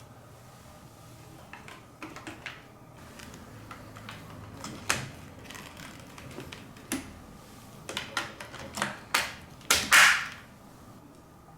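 Marbles clicking and clattering down the plastic spiral chutes of nagashi somen water-slide machines, over the low hum of an electric water pump. The clicks come irregularly and grow more frequent, with the loudest burst near the end.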